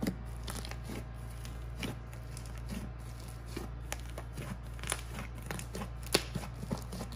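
A hand squeezing and pressing foam-filled slime, giving irregular wet pops and crackles, the sharpest about six seconds in. A steady low hum runs underneath.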